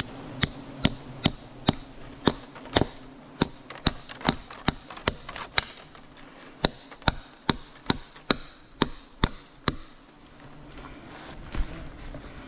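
Claw hammer driving a nail into a tree branch: about twenty sharp strikes, roughly two a second, with a short pause near the middle. The strikes stop a little before the end.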